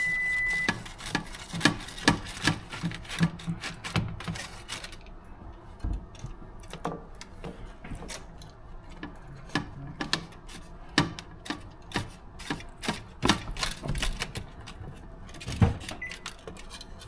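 A steady high electronic beep cuts off under a second in; then come irregular clinks, clicks and knocks of kitchen utensils and dishes being handled, a few a second.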